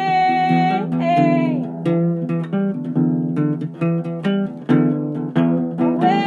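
Music: a song with plucked acoustic guitar. A long held note at the start falls away about a second in, and another held note comes in near the end.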